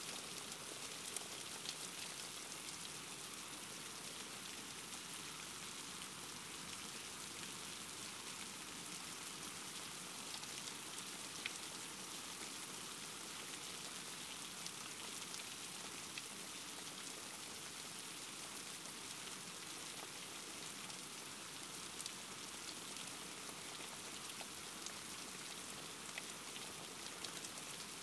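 Steady rain falling: an even hiss with many small, scattered ticks of drops.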